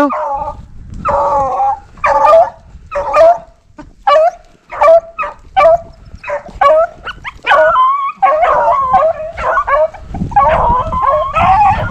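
A pack of rabbit-hunting hounds baying on a rabbit's track, a run of short, repeated calls about one or two a second. The voices overlap and thicken near the end. The baying means the dogs are on the scent of a running rabbit.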